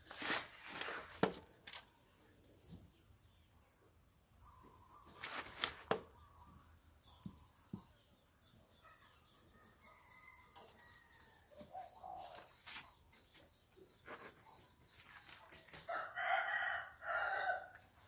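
A rooster crows near the end, a loud call in two parts. Earlier there are short bursts of rustling and scraping as hands work potting soil around the roots of a potted desert rose.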